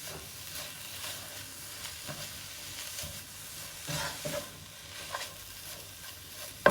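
Tuna filling with shredded dried chicken being stir-fried in a pan: a steady light sizzle under irregular scrapes and stirring strokes of the spatula, with a sharp knock against the pan near the end.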